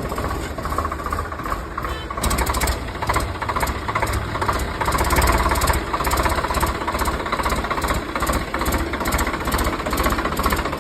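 An engine running steadily with a fast, even chugging beat, like a small tractor engine.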